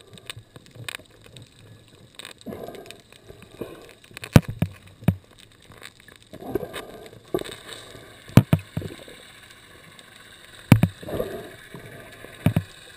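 Underwater sound heard through a GoPro dive housing: irregular sharp knocks and clicks, about five loud ones, between bursts of gurgling bubbles and water movement.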